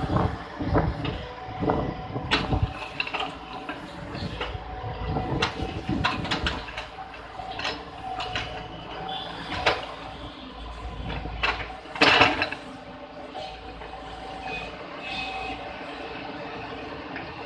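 JCB JS140 tracked excavator's diesel engine and hydraulics running steadily under load while its bucket digs, with repeated knocks and scrapes of the bucket against soil and stones. The loudest is a short heavy scraping burst about twelve seconds in.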